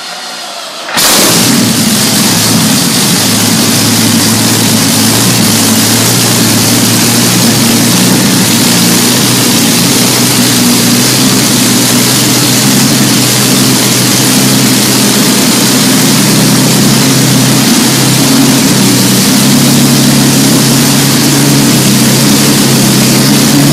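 Rolls-Royce Merlin liquid-cooled V-12 aero engine on a test stand, running through open stub exhausts: it comes in abruptly and very loud about a second in, then runs steadily.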